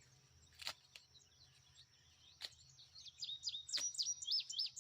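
A songbird singing a quick run of high chirping, up-and-down notes, starting about three seconds in. A few faint clicks come before it.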